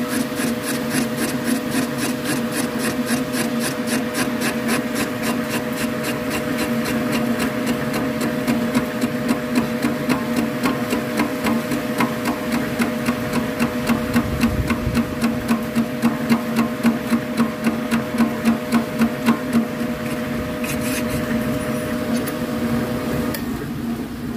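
Boring machine turning a cutter inside a motorcycle crankcase's cylinder opening, cutting the aluminium to a larger bore: a steady motor hum with a regular tick about three times a second. The motor stops about a second before the end.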